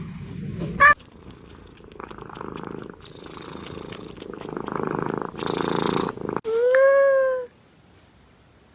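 Domestic cat purring in swells about once a second, between two meows: a short rising one at the start and a loud, drawn-out one near the end.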